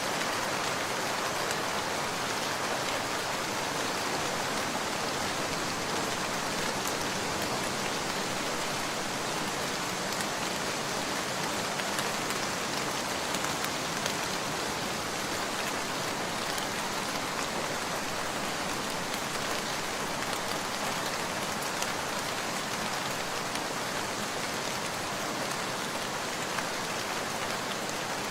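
Steady rain falling: an even, unbroken hiss with scattered sharp drop ticks.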